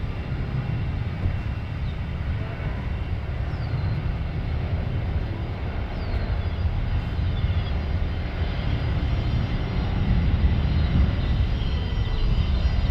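Aircraft engine noise across the airfield: a steady low rumble that grows louder over the last few seconds.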